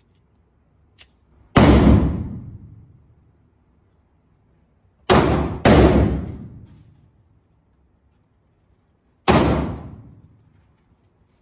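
Four pistol shots from a .40 S&W Glock 22, each with a long reverberant tail off the indoor range walls. They come as a single shot, then two in quick succession about half a second apart, then one more; a faint click comes just before the first.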